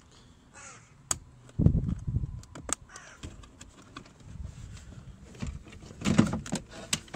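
Crows cawing in two short runs, about a second and a half in and again near the end, with a few sharp clicks from plastic door trim and wiring connectors being handled.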